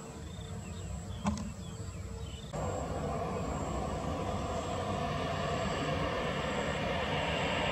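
Airbus A320 jet engines running as the airliner taxis: a roar with a steady whine that sets in abruptly about two and a half seconds in and slowly grows louder. Before that, a quieter low rumble with a single click.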